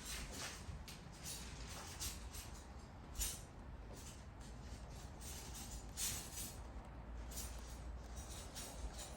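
Rain falling: a faint steady hiss with scattered, irregular drops tapping.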